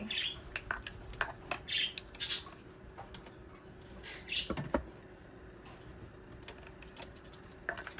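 Pet parrots giving short, high chirps a few times, with scattered small clicks and taps among them.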